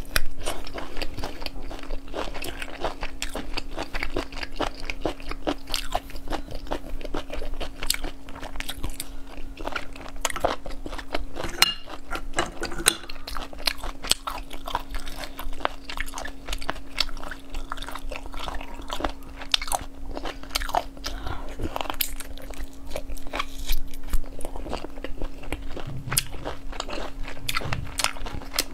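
Close-miked eating of sauced cat's-eye sea snails: wet chewing and sucking of the meat from the shells, with many short smacking clicks throughout. A steady faint hum runs underneath.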